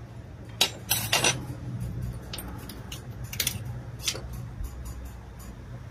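Small steel parts and hand tools clinking and tapping against a cast-iron bench vise, with a quick run of clinks about a second in and a few single clicks after. A steady low hum runs underneath.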